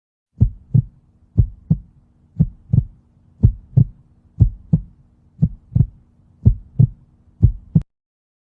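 Human heartbeat, the two heart sounds beating as a regular lub-dub: eight paired beats at about one per second, over a faint low hum. It stops abruptly near the end.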